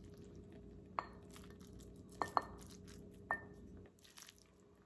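A spoon clinking against crockery as chicken and rice are scooped from an enameled Dutch oven toward a ceramic bowl. There are four short clinks with a brief ring, about one, two and a quarter, two and a half, and three and a quarter seconds in.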